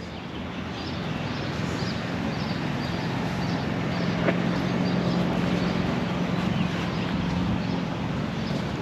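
A steady engine-like rumble with a low hum, building over the first few seconds and then holding level.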